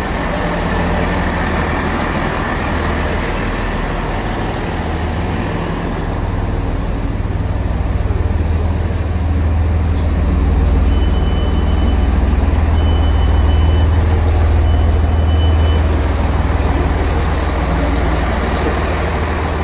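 Great Western Railway diesel multiple unit standing at the platform with its engines idling: a steady low rumble that grows louder in the second half. A high electronic beep sounds three times, evenly spaced, about halfway through.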